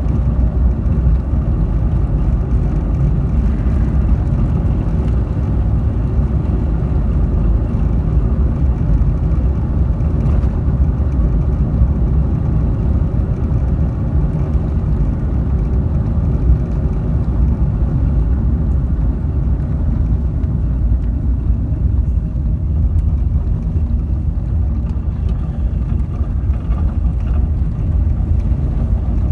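A car driving along: a steady low rumble of engine and road noise.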